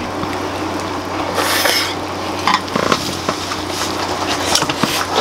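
Hot pot broth bubbling and sizzling in the pot, with utensils stirring and clinking against it and a brief louder hiss about one and a half seconds in.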